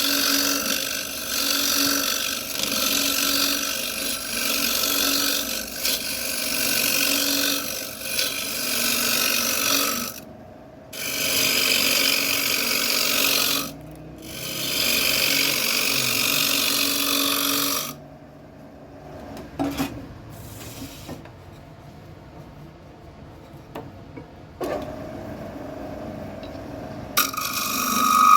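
A tool working a spinning piece of wood on a wood lathe: a loud, even scraping hiss in long passes with two short breaks, stopping about two thirds of the way through. After that comes a quieter background with a couple of clicks, and a steady whine starts near the end.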